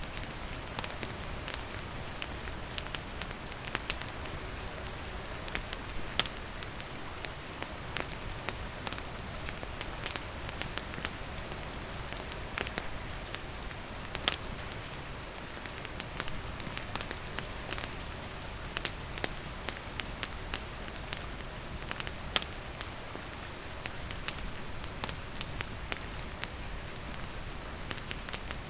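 Steady rain falling, mixed with a wood campfire crackling: scattered sharp pops and snaps over an even wash of rain.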